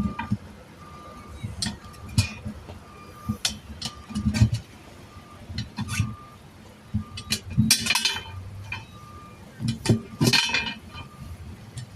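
Metal tools clinking and knocking irregularly during a tire-patch job, with two louder scraping bursts later on. A vehicle's reversing beeper sounds faintly and intermittently near the start.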